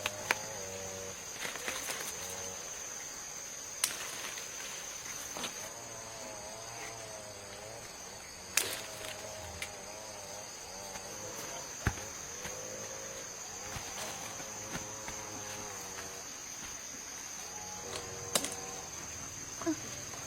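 Insects calling in one steady high-pitched drone. A handful of sharp knocks are scattered through it, and a faint wavering pitched sound comes and goes underneath.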